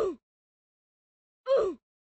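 An edited-in short sound effect with a falling pitch, played twice, identical each time (once at the start and again about one and a half seconds in), with dead silence between.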